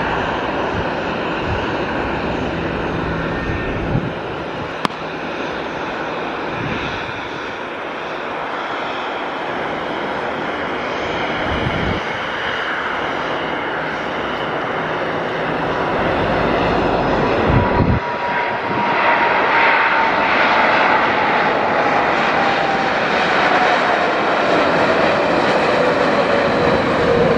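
Airbus A330-900neo's Rolls-Royce Trent 7000 jet engines on landing: a steady jet rush that grows louder about two-thirds of the way through. Over the last several seconds a whine slides steadily down in pitch.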